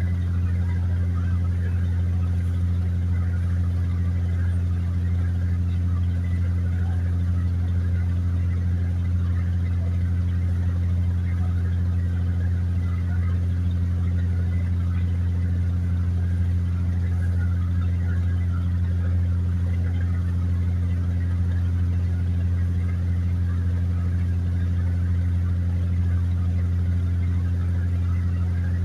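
A motor running steadily with an even, low hum that does not change.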